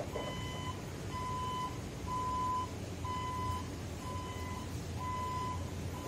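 Electric reach truck's warning beeper sounding a steady series of single-pitch beeps, about one a second, each about half a second long, over a low steady hum.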